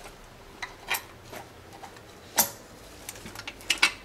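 Sharp metallic clicks and knocks of parts being handled and fitted into a Mercedes 722.3 automatic transmission case as a metal pin and its cover go into the side bore: a few scattered ticks, one louder knock about halfway through, and a quick run of clicks near the end.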